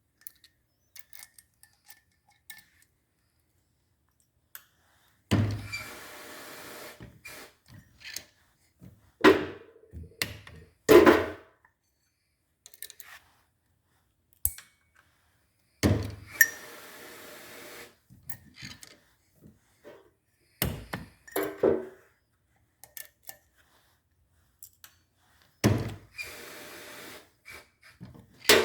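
Metal knocks and clinks of valve springs, retainers and keepers being taken off a Subaru single-overhead-cam cylinder head with a valve spring compressor. A loud knock about every ten seconds is followed each time by a short hiss, with lighter clicks in between.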